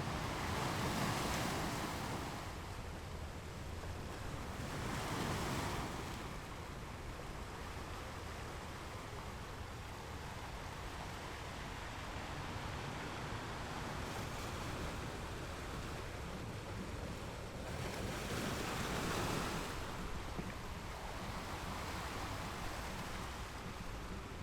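Ocean waves breaking on rocks: a steady wash of surf with louder surges as waves break about a second in, around five seconds in, and again near the end.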